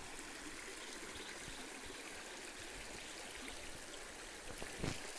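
Shallow rocky forest stream flowing over stones, a steady rushing of water, with a short soft thump near the end.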